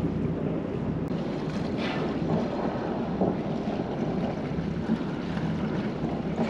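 Wind buffeting the microphone over a sailing yacht's engine running steadily under way, with water washing along the hull.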